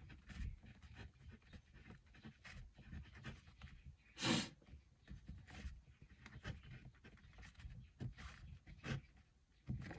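Pen writing on paper in many faint short strokes, with one short louder breath about four seconds in.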